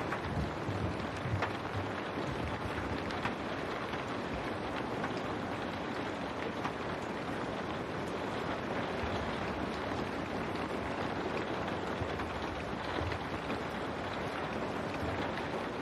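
Steady rain falling against window glass: an even hiss with faint scattered drop ticks and a low rumble underneath.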